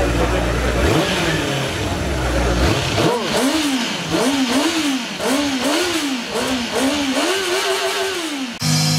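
Superbike engine revved over and over while standing still, its pitch climbing and dropping about once a second, six times, amid crowd chatter. A loud low rumble fills the first few seconds, and the revving cuts off suddenly near the end.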